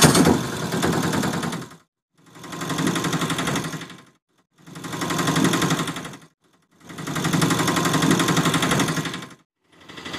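Rapid mechanical rattling sound effect in five bursts of about two seconds each, each one swelling and fading, with abrupt dead silence between them.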